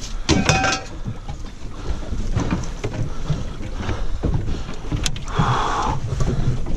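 Knocks and rattles as a landing net and gear are handled on a fibreglass boat deck, then a sharp click about five seconds in as a deck hatch lid is unlatched and lifted. A low rumble of wind and water against the hull runs underneath.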